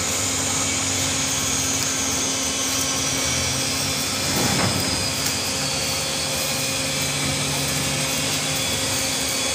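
Steady machine noise: a low hum under a thin high whine that slowly falls in pitch over the first several seconds.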